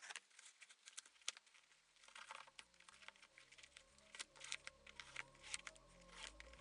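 Faint, irregular clicking and rustling of shoelaces being pulled out through the eyelets of Nike Air Force 1 sneakers. Quiet background music fades in under it.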